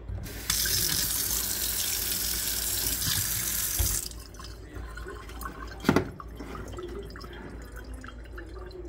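Kitchen tap running into a stainless steel sink for about three and a half seconds, then turned off. A sharp knock follows about two seconds later.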